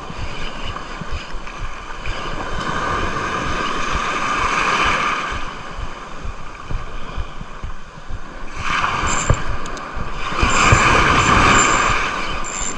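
Surf washing over a rocky shore, swelling twice, with wind buffeting the microphone. Small knocks of a spinning reel being cranked and handled up close run under it as a hooked fish is played.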